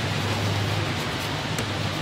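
Steady low hum under a constant broad hiss of background noise.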